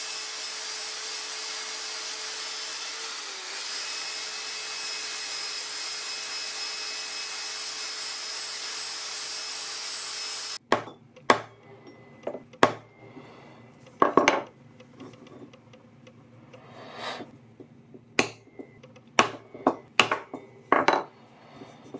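Power tool spinning a wire brush wheel against a cast copper ingot: a steady whirring hiss with a thin whine, cut off abruptly about ten seconds in. Then about a dozen sharp metallic knocks at irregular intervals, hammer blows on a punch stamping marks into an aluminium ingot.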